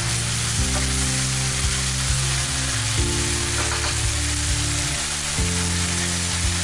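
Minced beef and onions sizzling steadily as they fry in a pan while being stirred with a wooden spoon. Under the sizzle runs background music with sustained low notes that change every second or two.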